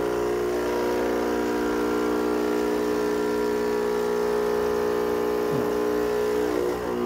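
Saeco Poemia espresso machine's pump running with a steady hum, pushing the last of the descaling solution out through the machine: the final stage of descaling.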